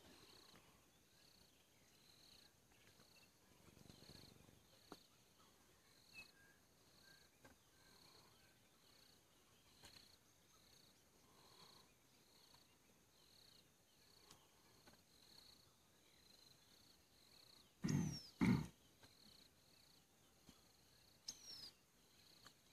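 Lions growling: two short growls close together about three-quarters of the way through, then a fainter one a few seconds later. An insect chirps faintly and steadily throughout.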